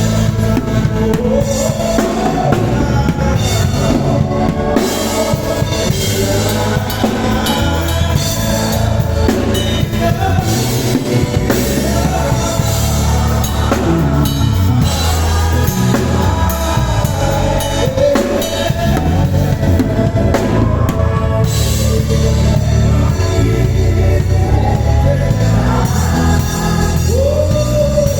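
Live band playing through a sound check: drum kit, bass, keys and guitar, with a sung melody over them.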